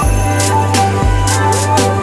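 Background music with a steady beat, bass notes and a sustained melody.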